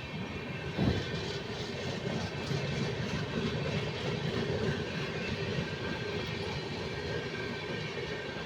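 Indian Railways train running on the track: a steady rumble of wheels on rails with faint repeated clicks and one sharper knock about a second in.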